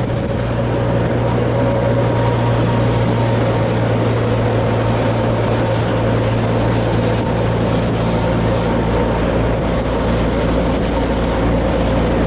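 Motorboat engine running steadily under way, a constant drone, with the rush of water churned up in the wake.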